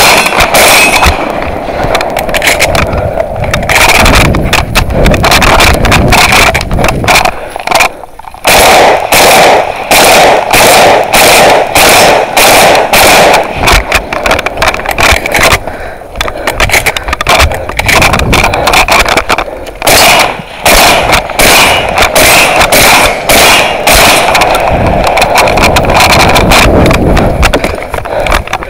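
Close-range shotgun fire in quick strings of shots, loud enough to overload the microphone, with short pauses about 8 and 16 seconds in.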